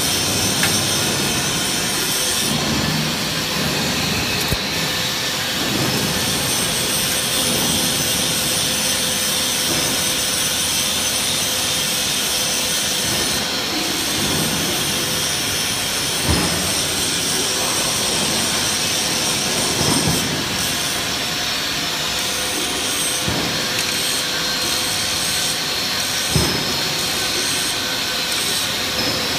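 Steady hiss and hum of running factory machinery, with a few short metal knocks from tools being handled on the machine's cutting die.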